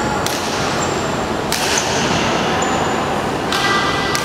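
Badminton rackets striking a shuttlecock during a rally, a few sharp hits about a second apart, with a couple of short high squeaks of sneakers on the wooden court floor, over a steady hum of hall chatter.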